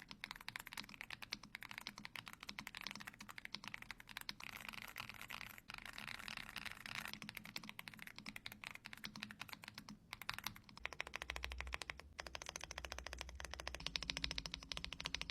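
Fast, continuous typing on an AULA F99 gasket-mounted mechanical keyboard with stock switches and keycaps swapped for red ones: a dense run of soft, muted keystroke clicks, the 'creamy' sound it is known for.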